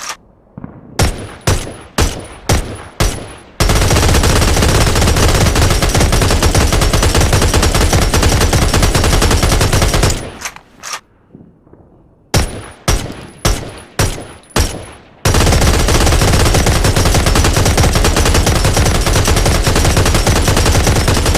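Thompson submachine gun (Tommy gun) firing: about half a dozen single shots in quick succession, then a long unbroken burst of automatic fire lasting about six seconds. After a short lull the same pattern repeats, single shots followed by another long automatic burst.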